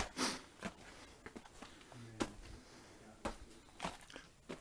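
Footsteps crunching and scraping over loose rock and rubble, with irregular sharp knocks as stones shift underfoot.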